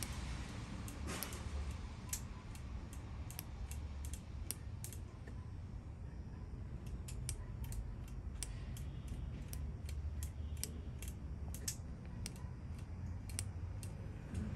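An ignition spark snapping across the gap of a spark plug clamped in a vise, heard as an irregular series of sharp ticks. Each tick comes as the rebuilt distributor's shaft is turned by hand to open the points. The spark is weak.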